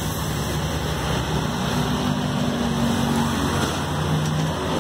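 A motor humming steadily under a wash of outdoor noise, its pitch shifting slightly about halfway through.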